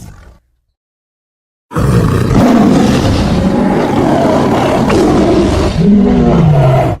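Tiger roar sound effect. The tail of one roar fades out at the start. After about a second and a half of silence, a long, loud roar lasts about five seconds and cuts off at the end.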